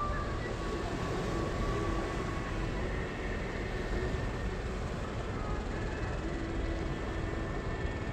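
Steady low engine rumble under an even wash of background noise, with a few faint, short higher tones.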